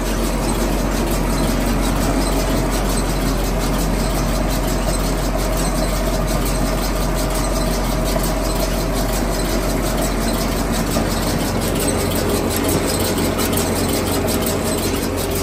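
Lely Welger RP 180V Master round baler running empty off the tractor's PTO: rollers, chains and pickup tines turning with a steady mechanical racket and fast, even ticking, over the tractor engine, with a steady whine.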